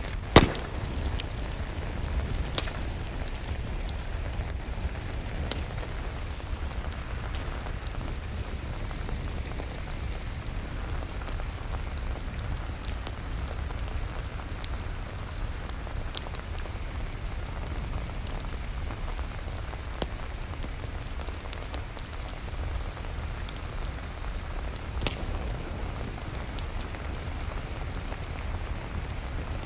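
Steady rain falling, with a few sharp crackles from a wood fire, the loudest just after the start.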